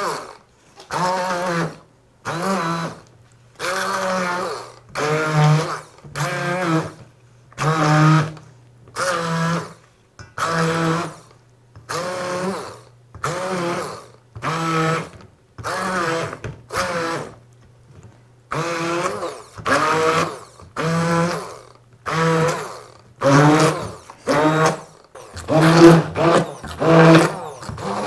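Hand-held stick blender pureeing boiled vegetables in a metal bowl, run in short pulses about once a second. Its motor pitch wavers with each burst as it churns the mash smooth.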